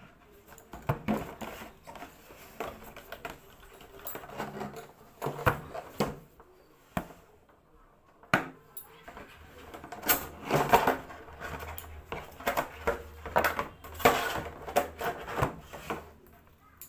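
Handling noise from a hair straightener and its cardboard box: irregular clicks and knocks of its plastic body against the box and tabletop, with rustling as the straightener is lifted out and its cord is unwound.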